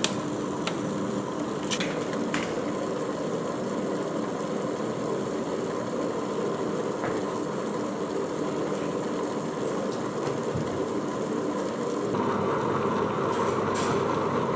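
Ultra Mini tabletop wet grinder running steadily, its motor humming as the conical stones turn the soaked rice and dal into idli batter in the rotating steel drum. A few light clicks come in the first couple of seconds, and the drone turns a little brighter and louder about twelve seconds in.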